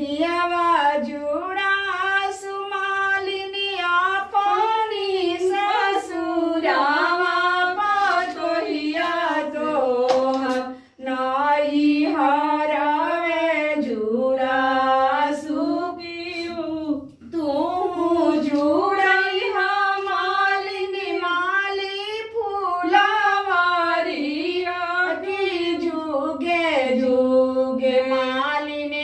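Women singing a Bhojpuri devotional folk song to the mother goddess without instruments, in long held, wavering melodic lines. The singing breaks off briefly for breath a few times.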